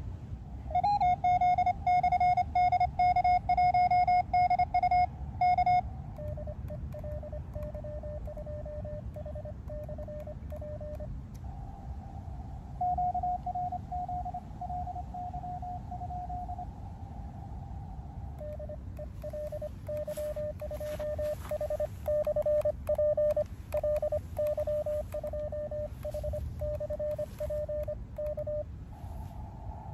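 Morse code (CW) tones from an Elecraft KX2 transceiver's speaker on the 30 m band. Stretches of keyed beeps at a few slightly different pitches sound over a steady receiver hiss, with static crackles through the second half.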